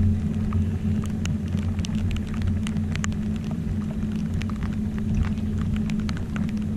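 Raindrops ticking irregularly on the boat and gear over a steady low hum.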